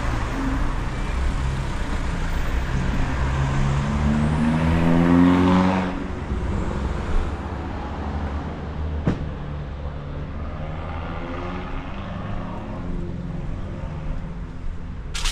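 Street traffic: a motor vehicle accelerates past, its engine pitch rising and loudest about five seconds in, then dropping away abruptly. A second vehicle later pulls away more faintly, with a sharp click or knock in between.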